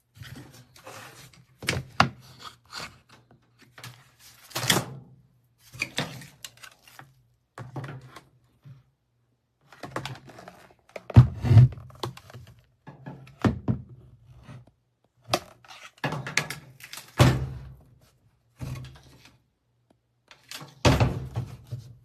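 A series of irregular thunks and knocks, about a dozen, with the loudest a third, two thirds and near the end of the way through.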